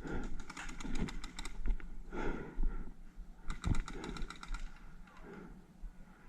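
Paintball markers firing two rapid full-auto strings of shots, about nine or ten a second, the first near the start and the second about three and a half seconds in, with low thuds of movement between them.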